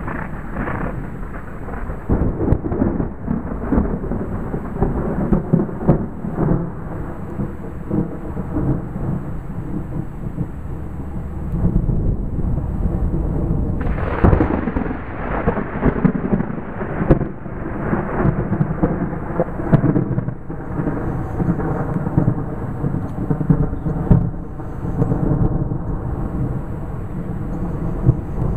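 Rolling thunder from an approaching thunderstorm: a long, continuous low rumble that rises and falls, swelling louder about halfway through.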